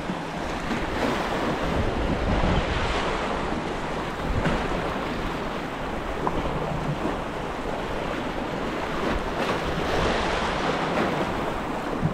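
Waves washing and splashing against the granite boulders of a jetty, in gentle surges, with wind rumbling on the microphone.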